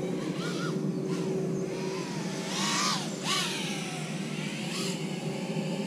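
Ducted FPV quadcopter with all four prop ducts fitted, in flight: the motors' whine bends up and down in pitch as the throttle changes, with two louder rushes of prop noise about two and a half and three seconds in.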